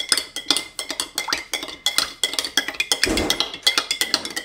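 A metal spoon stirring fast in a glass tumbler, clinking rapidly against the sides so the glass rings faintly.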